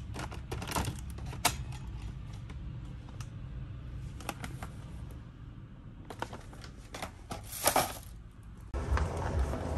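Scattered sharp clicks and knocks over a steady low background hum, with a brief, louder cluster of clatter near the end.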